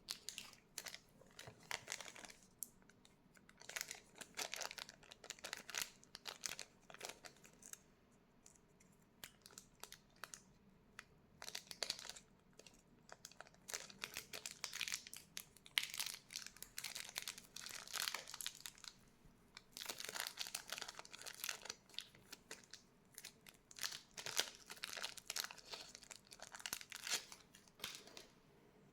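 Packaging being handled during an unboxing: crinkling and crackling in irregular bursts of a second or more, with short pauses between.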